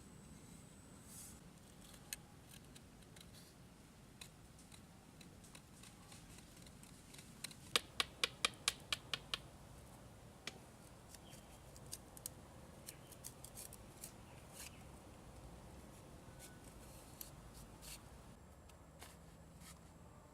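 A quick run of about eight sharp clicks, roughly five a second, with scattered single clicks before and after.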